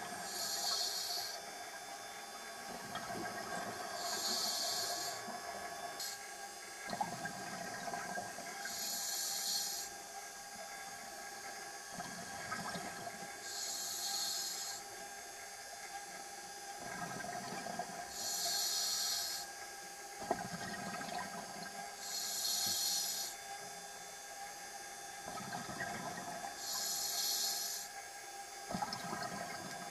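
A scuba diver breathing through a regulator, heard underwater: a hissing inhale about every four to five seconds, with bubbly exhales rumbling in between.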